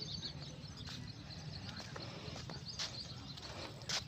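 Outdoor background: a steady low hum with faint bird chirps, and a few sharp clicks or knocks, the loudest near the end.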